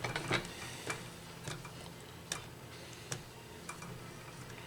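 Sausage stuffer being worked to push sausage mixture into pasta shells, its mechanism giving a series of separate sharp clicks, less than a second apart.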